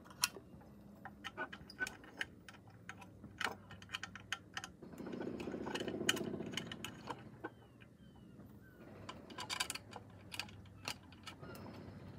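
Irregular metallic clicks and ticks from a Mamod tinplate model steam traction engine as it is handled and its wheels and flywheel are turned by hand, with a louder rattling rasp about five seconds in and a burst of clicks a little before the end.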